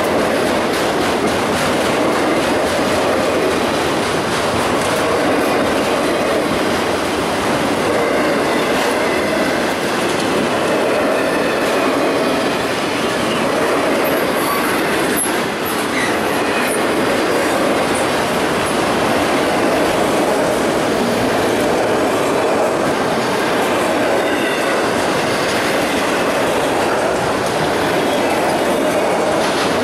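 Freight train of enclosed autorack cars rolling steadily past close by, its steel wheels clicking over the rails. A few brief high wheel squeals come about halfway through.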